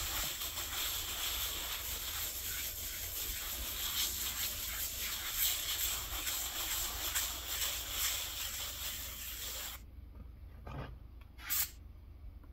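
A stucco float rubbing and scraping across wet acrylic super fine finish on a foam board, a steady gritty rasp as the finish coat is opened up. The rubbing stops about ten seconds in, and two short scrapes follow near the end.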